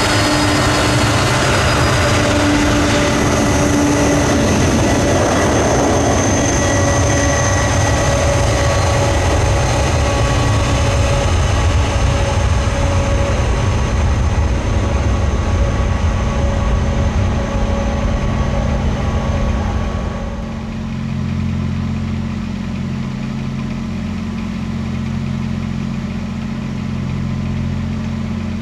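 Jet aircraft engines running steadily, with several held whining tones over a low rumble. About twenty seconds in the sound falls away, leaving a quieter low hum.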